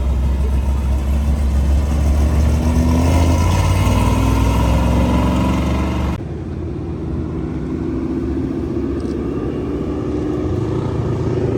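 Car engines and exhausts running loud and close, the pitch climbing a little; about six seconds in the sound cuts abruptly to another engine running, which grows louder toward the end.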